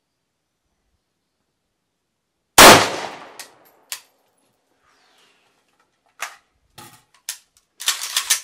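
A single rifle shot from an Arsenal SLR-107R AK-pattern rifle firing 7.62x39 123-grain Wolf ammunition, echoing briefly. A few seconds later come clicks and metallic clatter as the rifle is handled and lowered to the bench.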